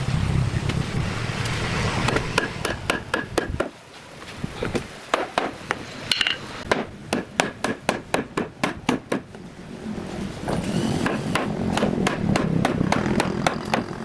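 Rapid hammer blows in a woodworking build, about three or four a second in two long runs. A steady rushing noise fills the opening seconds and returns briefly in the pause between the runs.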